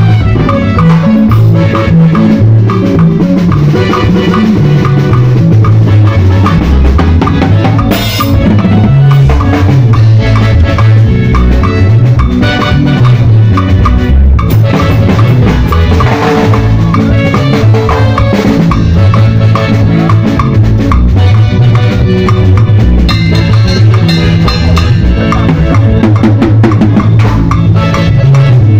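Drum kit playing with a full band or backing track, with a moving bass line and other pitched instruments underneath. Loud and continuous throughout.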